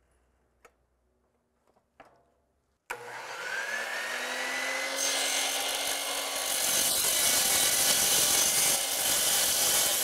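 Miter saw starting up about three seconds in, its motor winding up with a rising whine, then its blade cutting through aluminum bar stock with a dense, hissing rasp for the rest of the time. A few faint clicks come before it starts.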